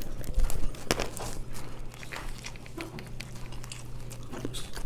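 Person eating at close range: chewing and biting with scattered small clicks and crinkles, over a steady low hum.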